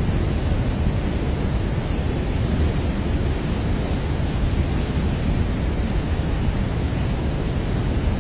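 Steady, even rushing noise, strongest in the deep low end, with no tones or rhythm in it.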